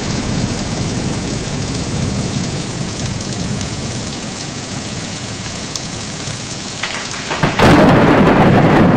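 AI-generated sound effect from Meta's Audiobox of heavy rain falling steadily, with a louder crash of thunder coming in near the end.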